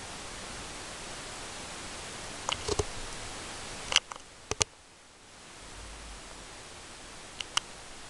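Steady background hiss broken by a scattering of short, sharp clicks: a small cluster a little before the middle, the loudest about four seconds in followed by two more, and two near the end.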